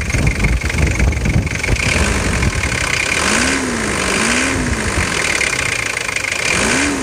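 Nissan TD27T turbo-diesel engine idling roughly with a nasty metallic clatter that seems to come from the top of the engine. It appeared after an injection-pump rebuild, and the owner does not know its cause.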